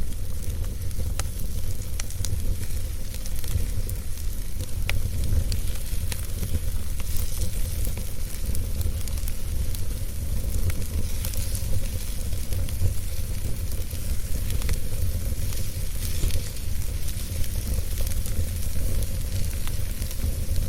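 Wood fire burning in a fireplace: a steady hiss over a deep rumble, with scattered sharp crackles and pops.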